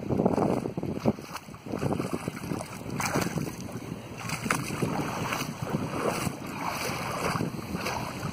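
Wind buffeting the microphone in uneven gusts, over small waves lapping in shallow seawater.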